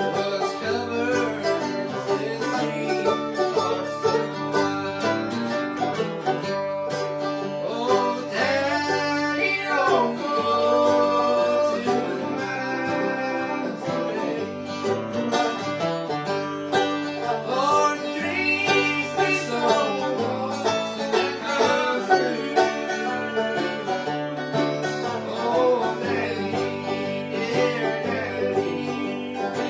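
Bluegrass music: an acoustic string band picking, with banjo and guitar.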